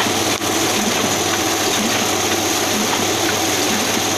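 Ryobi offset printing press running, a steady, even mechanical noise with a brief dip about half a second in.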